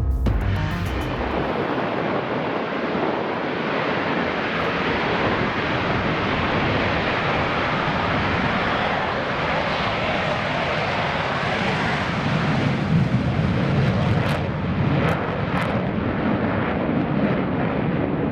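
Jet aircraft engine noise: a steady rushing roar that swells slightly in the later part, with a few sharp clicks.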